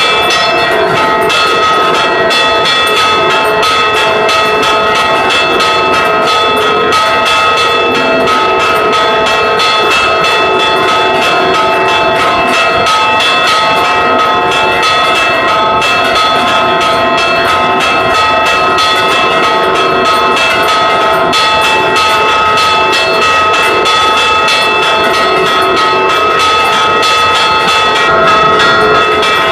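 Church bells rung in a repique: rope-pulled clappers strike the hanging bells in rapid, unbroken succession, the bells' tones ringing on loudly under the strikes.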